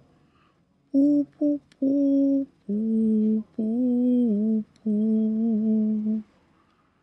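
A single voice humming a slow tune: two short notes about a second in, then four long held notes, the fifth wavering in pitch, ending about six seconds in.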